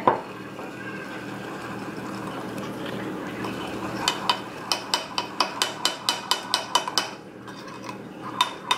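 Metal spoon stirring mug-cake batter in a ceramic mug. From about four seconds in, the spoon clinks against the mug's sides in a quick regular run, three or four a second, and starts again near the end.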